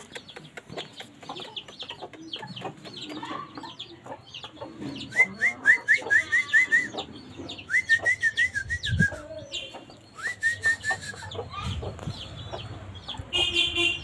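Aseel chickens calling: a continual stream of short, high, downward-sliding peeps, broken by three louder runs of rapid calls about five, eight and ten seconds in.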